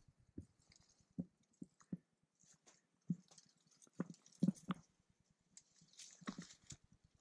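Footsteps crunching slowly and irregularly through dry grass and dead brush, with dry stalks rustling against the walker.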